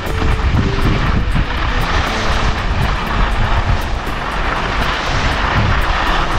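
Wind rushing over an action camera's microphone with skis sliding on the snow during a downhill run: a loud, steady rumble.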